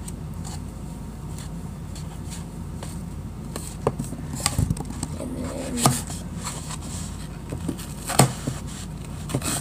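Scattered sharp knocks and taps as magic eraser foam is cut with a knife and the pieces are handled on a hard surface, over a steady low background hum.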